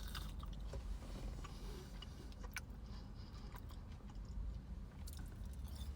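A person chewing a sauce-dipped chicken nugget, with faint soft mouth clicks, over a low steady hum.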